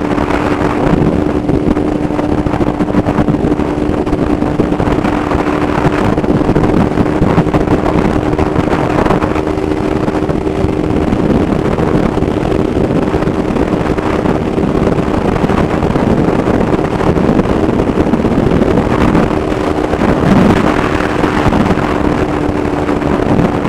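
Motorcycle engine running at a steady speed, its note holding one pitch throughout, under heavy wind rush on the microphone.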